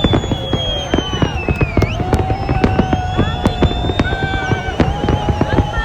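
Fireworks going off in a rapid, continuous barrage of bangs and crackles, with long whistling tones that fall slightly in pitch sounding over them.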